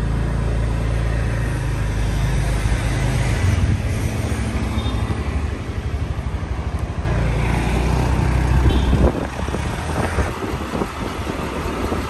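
Motor scooter on the move: its engine running under a loud low rumble of wind across the microphone. The sound changes abruptly a few times as short riding clips cut together.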